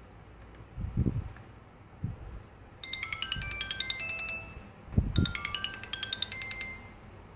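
Sony Ericsson T700 mobile phone playing a ringtone through its small built-in speaker. The tone is a short, high, chime-like phrase of quick notes, starting about three seconds in and played twice. A few soft low knocks of the phone being handled come between and under the phrases.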